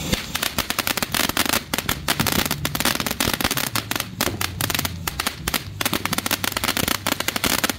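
Ground fountain firework spraying sparks, with a dense, irregular crackle of many small sharp pops.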